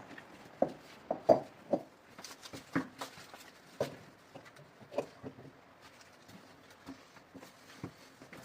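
Irregular knocks and taps, several close together in the first two seconds, then sparser ones.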